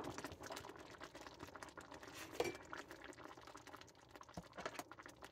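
Lemon caper sauce bubbling faintly in a cast iron skillet just taken off the boil, with a few light clicks of a fork and spoon against the pan.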